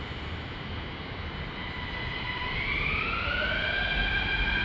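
Mumbai Metro train pulling away from the platform. A steady rumble and hiss first, then, from about two seconds in, the electric traction motors' whine rises in pitch and grows louder as the train accelerates.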